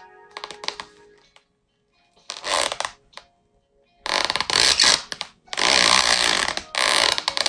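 Rough scraping or rubbing noise in four loud bursts, each up to about a second long, the last three close together in the second half, over faint background music.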